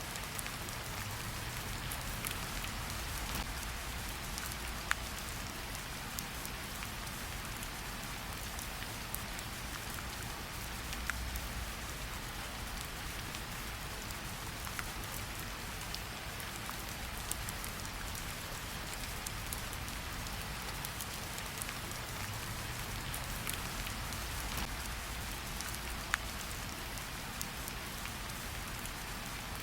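Steady rain falling, a constant hiss with now and then a single sharper drop tick.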